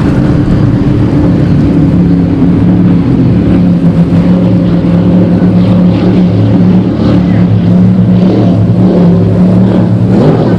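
Offshore racing powerboat running flat out across the water, its engine a loud, steady drone over the rush of wind and spray.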